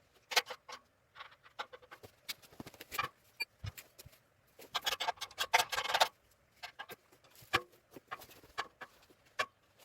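Sped-up workshop work on a steel car jig: irregular clicks, taps and small metallic knocks of tools and parts, with a burst of rapid clatter about halfway through.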